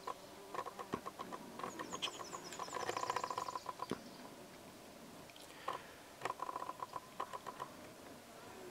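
Rapid chattering calls from a small forest animal in two bouts, with a short run of high descending bird notes about two seconds in and a few sharp clicks.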